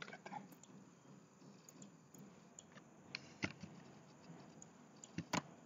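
Faint scattered clicks of a computer mouse and keyboard, the sharpest about three and a half seconds in and a quick pair just before the end.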